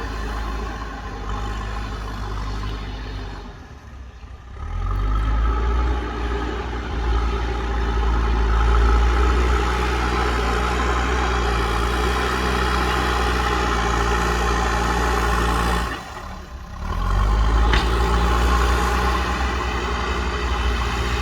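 JCB backhoe loader's diesel engine running under load while its front bucket pushes and levels soil. The sound dips briefly twice, about four seconds in and again near sixteen seconds, and each time comes back louder and heavier.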